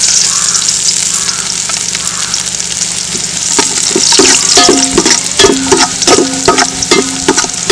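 Chopped ginger and garlic sizzling in hot coconut oil in a metal pot. From about halfway in, a spatula repeatedly scrapes and knocks against the pot, and the pot rings after each knock.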